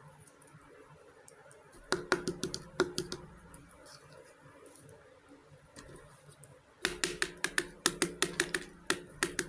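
Rapid clicks and taps of small hard toy pieces being handled: a short cluster about two seconds in, then a fast run of clicks near the end.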